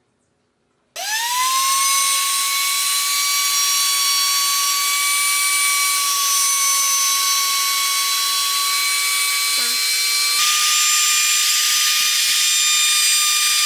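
Compact trim router switched on about a second in, its whine rising fast as the motor spins up, then running steady and high-pitched while it cuts into pine. About ten seconds in the pitch steps up a little and the sound turns hissier.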